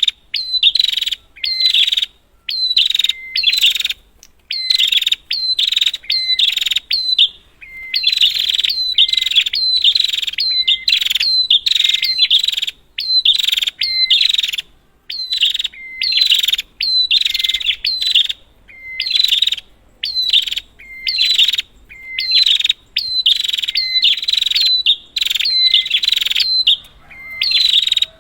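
Prinia calling over and over in a fast, continuous series: short harsh, buzzy calls, each opening with a brief lower note, coming one or two a second with only short gaps.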